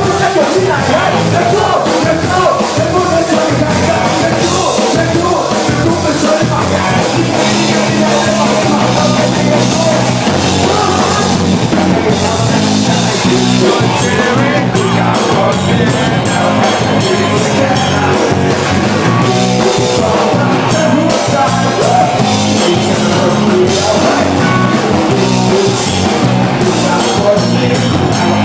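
Loud rock music with drums, guitar and singing voices.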